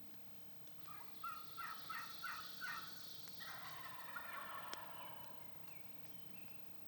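Wild turkey gobbling: a quick run of about five notes starting about a second in, then a longer rattling call that fades out. A single sharp click comes near the middle.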